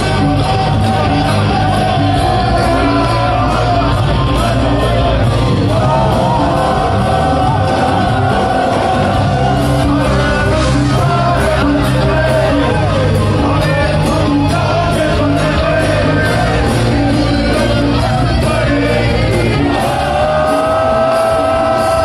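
Live band playing loud amplified music, with a male singer holding long notes over drum kit, guitars and tabla, while the crowd near the phone shouts and whoops along.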